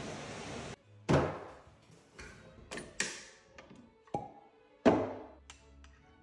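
Knocks and thunks of a power tool being handled and put down on a laminate worktop, the two loudest about a second in and near five seconds in, over faint background music. A steady hiss cuts off abruptly under a second in.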